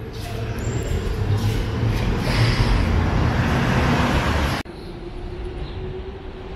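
Loud rumble of city traffic, swelling to a peak between about two and four and a half seconds in, then cut off abruptly. Quieter street traffic follows.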